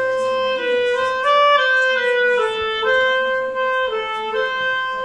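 Solo clarinet playing a slow melody of long held notes that step up and down between nearby pitches.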